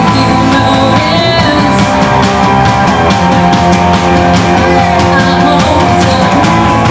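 A live rock band playing: electric guitars and a drum kit keeping a steady beat, with a woman singing lead.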